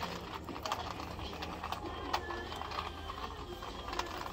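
Supermarket background: a steady low hum with scattered light clicks and clatter throughout.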